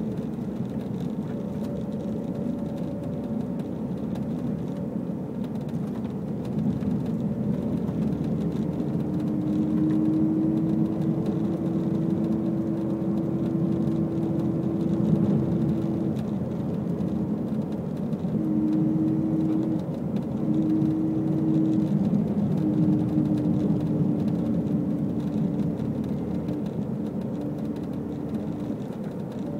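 A stock Subaru STI on the move: steady road and drivetrain noise with a thin humming tone that comes in about eight seconds in, drops out and returns several times. The owner suspects the hum comes from the rear differential.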